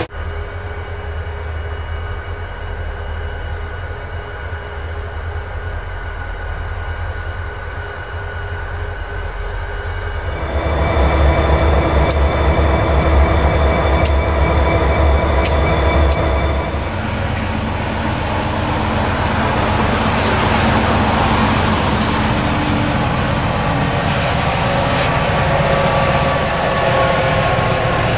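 Diesel freight locomotives: first a train rolling past with a steady engine drone. From about ten seconds in, a loud, low throbbing of RJ Corman diesel locomotives running close by, with a few sharp clicks. From about seventeen seconds, the rushing wheel-and-rail noise of a passing train.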